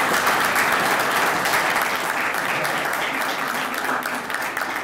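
A small audience applauding, many hands clapping together, tapering off near the end.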